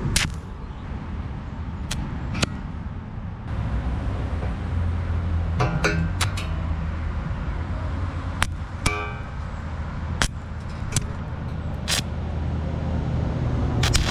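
Stick welder with a 3/32" 7018 rod being struck on a steel I-beam: short sharp pops and clicks, scattered and uneven, as the arc flashes and dies without holding, over a steady low hum. The arc is hard to get going on the low amperage setting.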